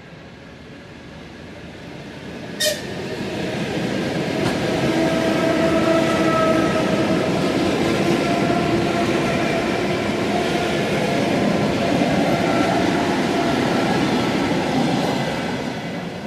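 ET2M electric multiple unit going by close at speed: a steady rumble of wheels on rail with a steady hum from the traction motors, building over the first few seconds and fading near the end. A single brief sharp sound comes about three seconds in.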